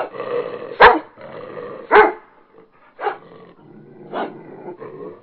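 Dog barking in single barks spaced about a second apart, the first two loudest and the later ones weaker.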